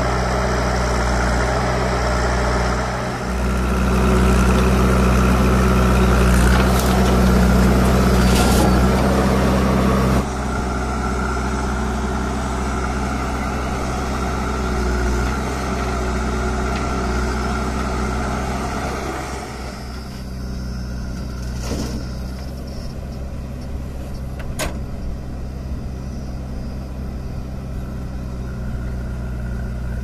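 Diesel engine of a JCB backhoe loader running steadily as it digs and loads soil into a tipper truck, louder for several seconds and then dropping suddenly about a third of the way through. A couple of short knocks in the second half.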